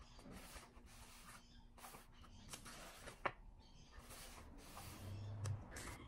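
Faint rustling of paperback pages being handled and turned, several soft rustles, with one sharp click a little past three seconds in.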